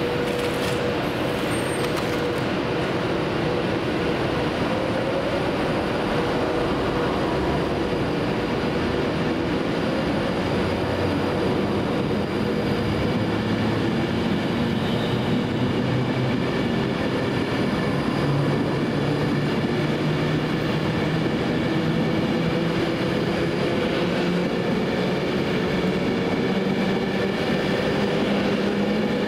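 A train running at the station platform: a steady rumble with several humming tones that drift slowly up and down in pitch.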